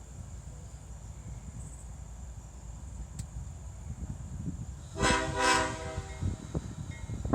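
A freight locomotive's air horn sounds one short blast, about a second long, about five seconds in. A low rumble runs under it and gets suddenly louder near the end.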